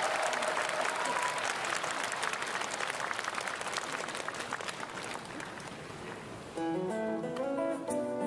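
Audience applause that gradually fades, then about six and a half seconds in a guitar starts picking out the single-note intro of the next song.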